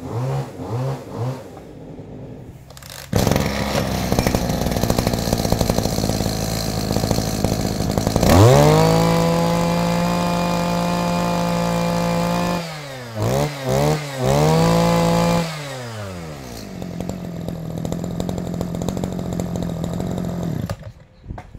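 Robin NB2510H two-stroke brush cutter engine: after a few short pulls it starts about three seconds in and idles. It then revs up sharply and holds high revs, is blipped three times, drops back to idle and cuts off suddenly near the end.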